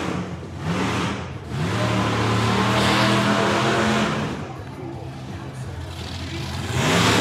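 Monster truck engine revving hard: a short rev about half a second in, then a long high rev held for a couple of seconds before it drops back, and another rev rising near the end.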